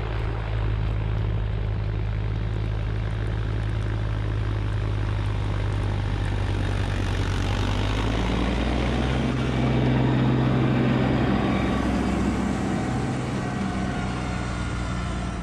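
Kubota LX2610 compact tractor's three-cylinder diesel engine running steadily under load while driving the front-mounted LX2980 snowblower, with a steady rush of noise over it. It grows louder and its hum rises slightly in pitch as the tractor passes close about eight seconds in.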